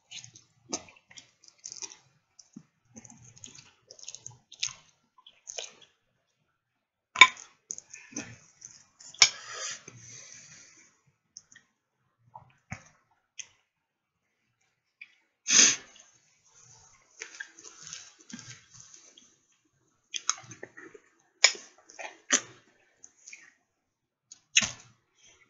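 A person chewing ribs with the mouth close to the microphone: wet smacking, sucking and clicking mouth sounds at irregular intervals, with one louder breathy burst a little past halfway.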